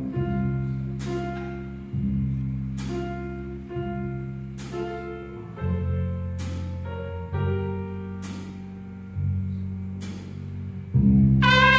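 High school jazz big band playing a slow ballad, the rhythm section alone: held bass notes, piano chords and a cymbal stroke about every two seconds. Near the end the full horn section comes in loudly.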